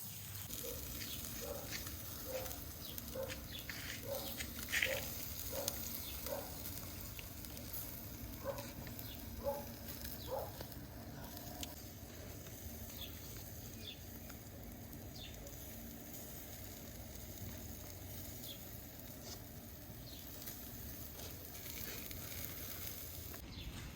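Beef-rib kebabs grilling on a grate over a charcoal mangal, with a steady low sizzle and scattered crackles and pops from the fat and coals. Through the first ten seconds a short mid-pitched chirp repeats a little more than once a second.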